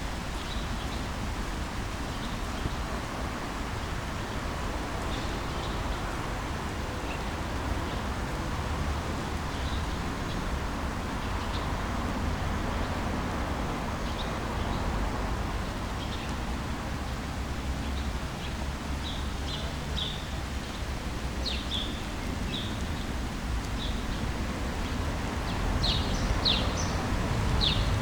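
Steady storm ambience, a hiss of rain or wind over a low traffic rumble, with small birds chirping now and then, more often in the last third.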